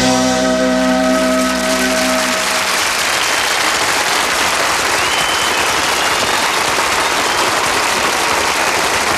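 Studio audience applauding at the end of a song, while the band's last held chord fades out over the first two or three seconds.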